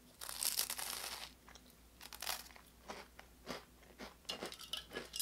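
Toasted bread crunching as it is bitten and chewed close to the microphone: a loud crackling crunch about a second long near the start, then a run of shorter, irregular crunches.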